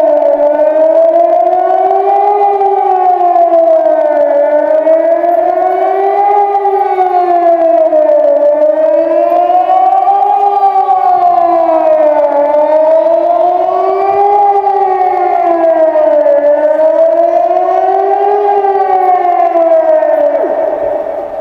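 Civil-defence siren sounding the Swiss general alarm: a loud wailing tone that rises and falls smoothly about every four seconds. The tone drops in level near the end.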